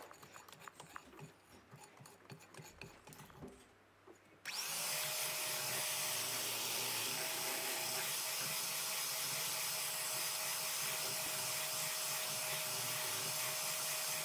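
Electric hand mixer switched on about four and a half seconds in and running steadily at its lowest speed, a steady motor whine as the beaters whisk a runny batter. Before it starts, only a few faint clicks of handling.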